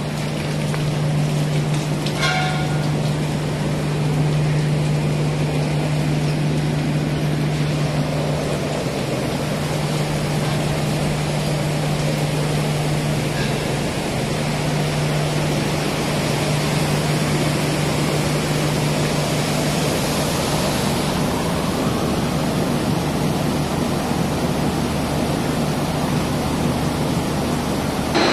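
Steady machinery noise of an ammonia refrigeration plant: a constant rushing hiss over a steady low hum, the hum dropping away about two-thirds of the way through.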